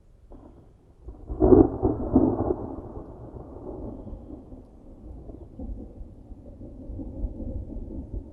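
Thunder: a loud crack about a second and a half in, a second peak soon after, then a long low rumble that slowly fades, with rain under it.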